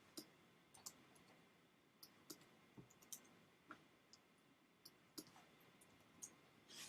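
Faint, irregular clicks of a computer mouse and keyboard, about fifteen short clicks scattered unevenly, as values are entered in software.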